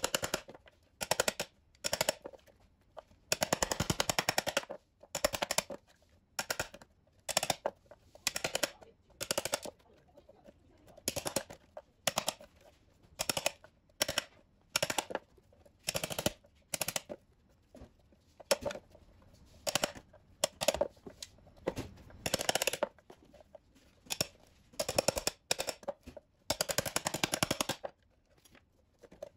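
Hammer driving a steel chisel into lumps of dried chaga on a wooden board: short flurries of quick metal-on-metal blows, one every second or two, as the hard fungus is broken up into pieces.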